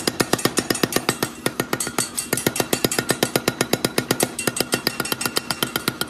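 Hammer blows striking iron during knife forging: a fast, even run of metallic strikes, about seven a second, each with a short ring.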